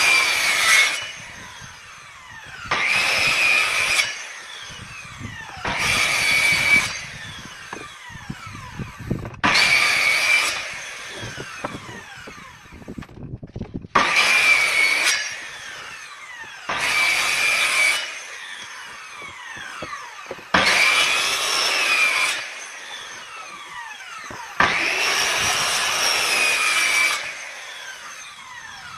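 Power tool cutting grooves into a wooden door panel in repeated passes: eight loud cuts of one to two and a half seconds, about every four seconds, each with a high whine. Between the passes the tool keeps running more quietly, its pitch falling.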